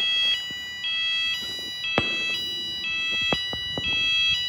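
School fire alarm sounder going off: an electronic two-tone alarm that alternates between two high pitches about twice a second over a steady high tone. A couple of short sharp clicks sound about two and three seconds in.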